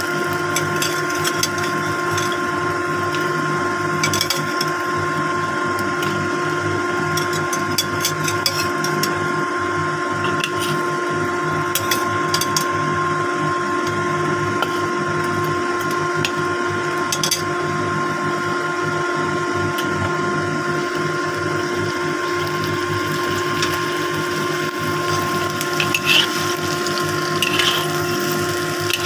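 Metal spatula scraping and clicking against a wok as fish steaks are turned in sauce. A few short clicks come in clusters. Under it runs a steady hum of a small motor holding several fixed tones.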